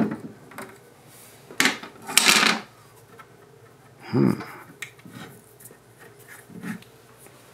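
Plastic parts of a GermGuardian AC4100 air purifier being handled as its cover is opened and the filters are pulled out. There is a sharp click, a short scrape about two seconds in, a dull knock about four seconds in, then a few lighter knocks.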